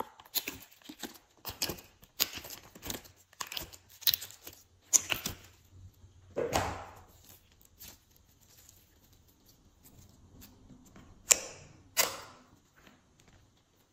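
Sticky slime being peeled out of a silicone mold and handled: a run of small wet clicks and crackles through the first five seconds, then a longer squish about six and a half seconds in. After a quiet stretch there are two sharp pops near the end as a finger pushes into the slime.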